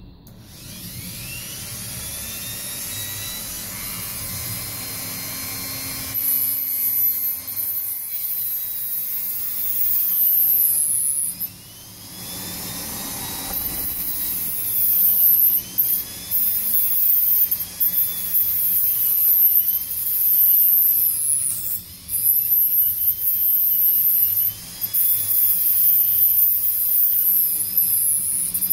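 Dremel rotary tool spinning up to a high whine, then cutting a small part, with a loud, high grinding hiss broken by short pauses. The motor's pitch sags and recovers again and again.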